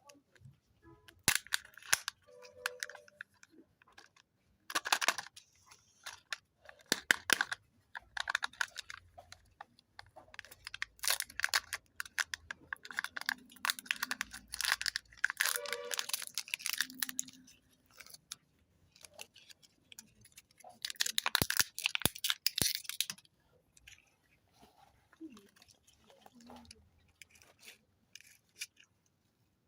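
Kinder Joy egg foil wrappers being torn open and crinkled in bursts, with sharp clicks of the plastic eggs being handled in between.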